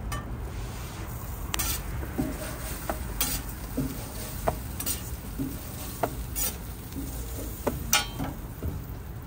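Street-stall toast cooking on a flat griddle: a metal spatula clinks and scrapes at irregular moments, about a dozen times, over a faint sizzle and a steady low hum.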